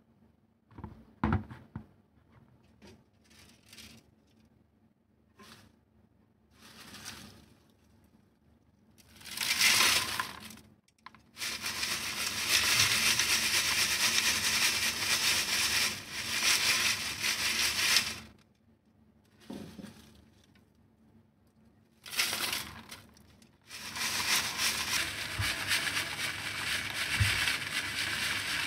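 Dry broken leaves rubbed and shaken in a metal mesh sieve over a plastic tub, a dry crackling rustle. Scattered short rustles and knocks lead up to two long spells of it, one in the middle and one near the end.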